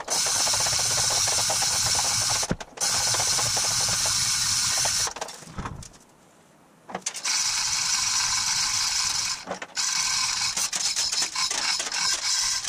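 Manual chain hoist being worked by its hand chain, its ratchet clicking and chain rattling steadily as it lifts an engine block. It runs in two long stretches with a quiet pause about halfway.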